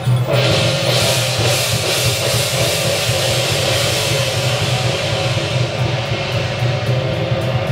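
Temple-procession percussion music: drums and cymbals playing, over a steady held tone. A bright cymbal wash swells about half a second in and fades away after a few seconds.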